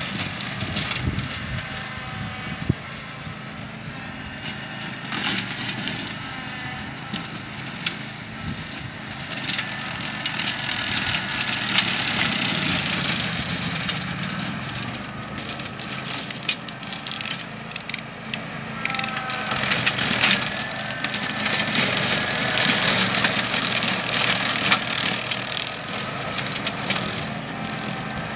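Canycom CMX 227 4WD ride-on brush cutter running under load as it drives into dense woody scrub, its blade crushing and splintering sapling stems over a steady engine drone. The crackle of cutting comes and goes, loudest in two long stretches, from about ten seconds in and again from about twenty seconds in.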